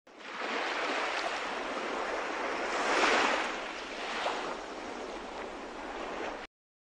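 Sea surf: waves washing in as a steady rush that swells to its loudest about three seconds in, then cuts off suddenly near the end.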